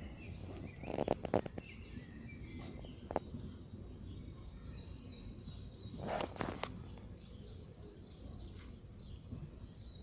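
Outdoor background noise with faint bird chirps, and short scuffing knocks about a second in and again about six seconds in.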